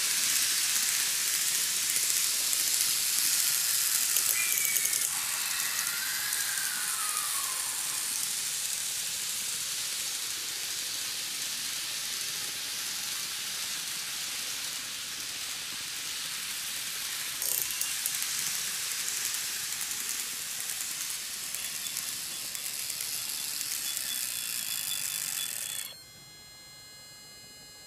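N-gauge model electric train (Microace E231 series 1000) running on its track: a steady hissing whir of wheels and motor, with a faint tone that rises and falls about five seconds in. Near the end the hiss stops suddenly, leaving a quieter whine of several faint steady tones.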